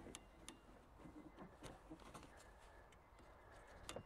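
Faint small clicks and ticks of a 13-pin towing electrical plug being twisted and pushed into the car's tow-bar socket, against near silence.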